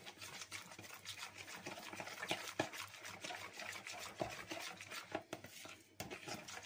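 Metal spoon stirring a thin wine-and-herb marinade in a plastic mixing bowl: a steady run of small liquid swishes and spoon scrapes, breaking off briefly about six seconds in.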